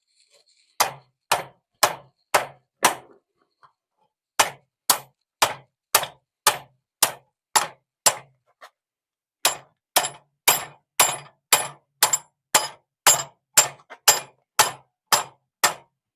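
Blacksmith's hand hammer striking steel on the anvil, widening the eye of a forged bottle opener, about 25 blows at roughly two a second in three runs with short pauses, each with a bright metallic ring.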